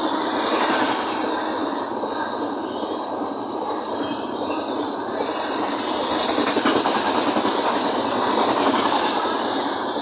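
Vaigai Express passenger train running through a station at speed without stopping: the coaches and wheels on the rails make a steady, loud rumble and rattle.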